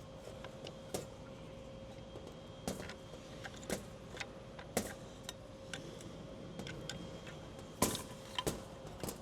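Irregular clicks, clinks and light knocks of small metal parts and hand tools being handled while a vacuum generator is disassembled, with a sharper pair of knocks near the end, over a faint steady hum.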